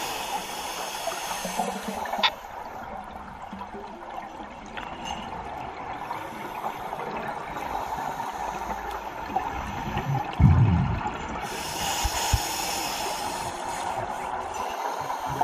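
Scuba diver's regulator heard underwater: a few long hissing inhalations, and a low bubbling rumble of exhaled air about ten seconds in.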